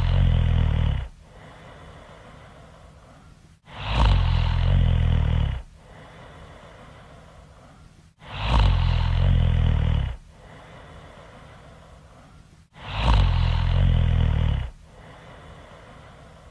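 Loud snoring in an even rhythm: a deep snore about two seconds long comes every four and a half seconds, three full ones plus the end of one about a second in, with quieter breathing between them.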